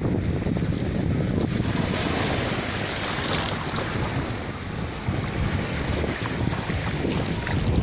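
Sea waves washing onto the shore, with wind buffeting the microphone as a low rumble. A brighter wash of surf swells up about two seconds in and fades again.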